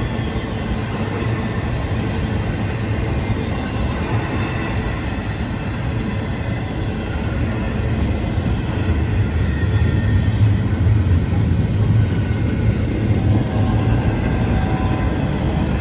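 CSX freight train rolling past with a steady rumble of cars and wheels on the rails, growing a little louder about eight seconds in.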